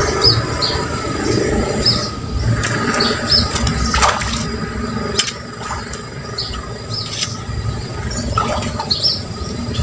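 Small birds chirping again and again over a steady low rushing noise, with a few sharp clicks in between.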